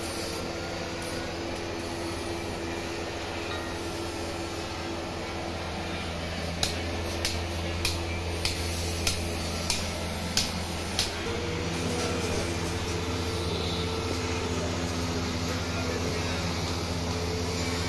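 Steady low machine hum that shifts in pitch pattern about eleven seconds in, with a run of about eight sharp metal blows a little more than half a second apart in the middle, like a hammer striking metal.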